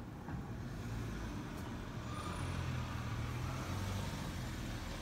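Steady low rumble of a motor vehicle's engine running.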